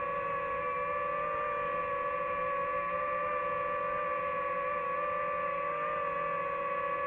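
DJI FPV drone's brushless motors and propellers whining steadily in flight, the pitch holding near-constant with slight wavering.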